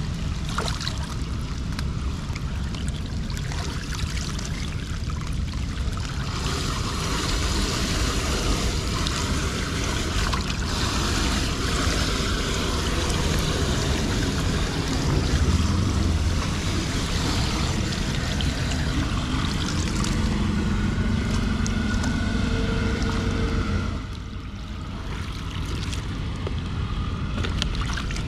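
Floodwater rushing and swirling down a storm drain as leaves and debris are pulled off its grate, with a low rumble under it. The rush grows fuller about six seconds in and eases a few seconds before the end.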